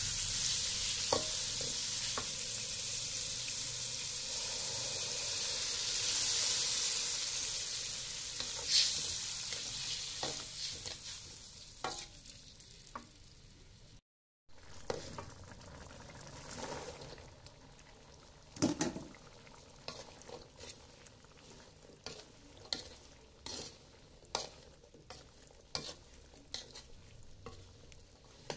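Squid and chili paste sizzling in an aluminium wok while a metal ladle stirs them; the sizzle is loud at first and dies away over the first half. After a short break, quieter frying of green beans and squid, with the ladle repeatedly knocking and scraping against the wok.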